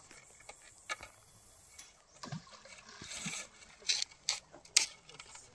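Scattered clicks and knocks, with three sharp ones close together in the second half.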